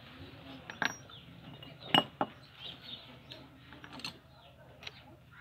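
A handful of short metallic clicks and clinks as the parts of a small 12-volt DC water pump are handled and pulled apart; the loudest knock comes about two seconds in.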